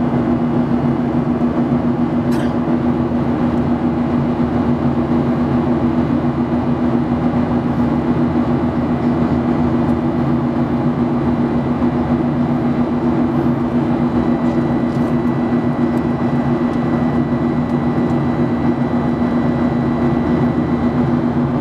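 Steady cabin drone of a Boeing 737-800's CFM56-7B turbofan engines and rushing airflow, heard from inside the cabin while the airliner climbs out after takeoff. A deep, even hum dominates, and a faint high whine joins about two-thirds of the way through.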